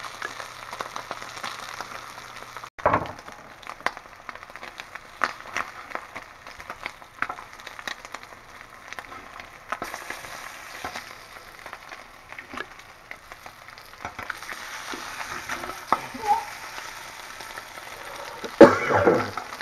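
Slices of SPAM sizzling and popping in a cast-iron skillet, with a metal spatula knocking and scraping against the pan as the slices are turned. There is a sharp knock about three seconds in and a louder burst near the end.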